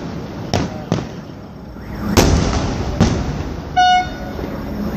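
Fireworks exploding: several sharp bangs with echoing tails, the loudest about two seconds in. Just before the end a short horn toot sounds.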